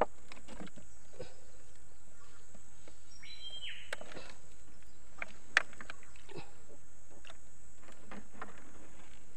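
Scattered small clicks and taps as a nylon gill net is pulled up hand over hand over the side of a wooden boat, with one sharper click about five and a half seconds in. A bird calls once, a short falling whistle, about three seconds in, over a steady high hiss of the outdoor background.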